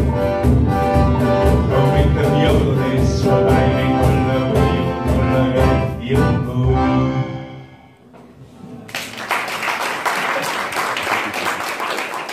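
A live band's song ending: a male voice singing over guitar and band with a steady beat, the last chord dying away about seven to eight seconds in. The audience then applauds.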